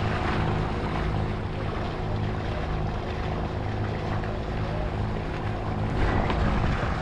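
A sailing catamaran's engines running steadily as it motors along: a low, even drone under a rush of wind and water.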